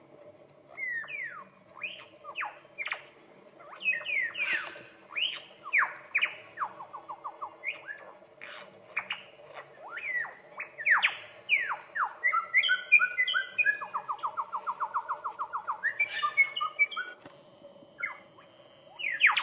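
Lyrebird singing a loud, varied medley of mimicked calls: many quick down-slurred whistles, a fast run of evenly spaced notes a little past the middle, and clusters of chirps near the end.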